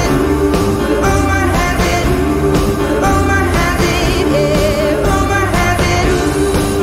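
Live pop-soul band playing with a singer's voice carried over the band, holding and bending notes with vibrato partway through.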